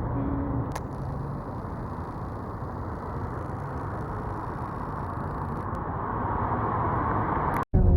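Steady road and engine noise heard from inside a moving car, growing a little louder toward the end before cutting off abruptly.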